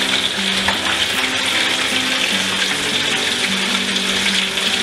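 Cubes of tofu frying in hot oil in a wok: a steady, dense sizzle with no break.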